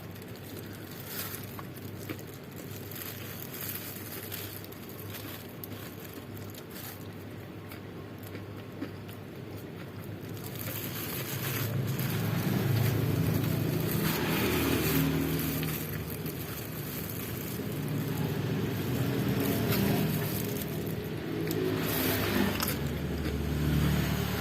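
Motor vehicles passing on the road close by. Their engines swell up and fade away several times in the second half, one after another.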